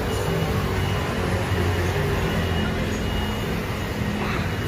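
City street traffic: a steady low engine rumble from passing vehicles.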